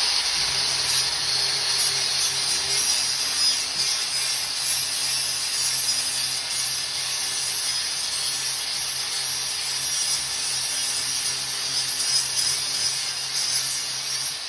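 Angle grinder with a flap disc running continuously while grinding down the end of a PVC pipe: a steady, high rasping hiss over the grinder motor's hum.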